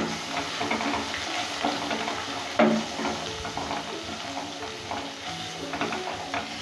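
Chopped onion sizzling in hot mustard oil in a non-stick kadai while a wooden spatula stirs it in repeated strokes, one sharp scrape about two and a half seconds in standing out above the rest.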